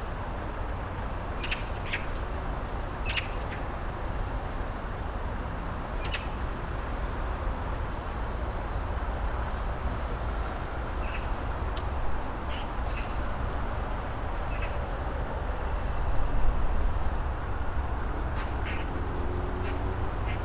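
Birds chirping and calling over a steady low rumble, with a short high call repeating about every second and a half.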